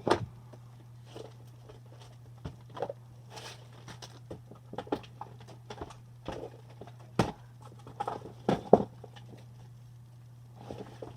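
Irregular taps, clicks and soft pops from handling plastic and silicone fidget toys, the loudest right at the start and near the end, over a steady low hum.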